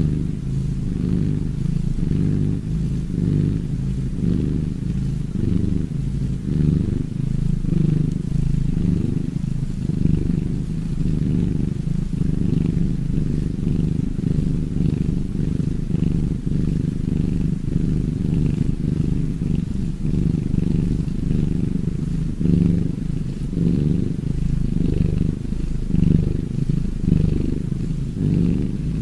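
Domestic cat purring: a steady low rumble with a gentle, regular pulse.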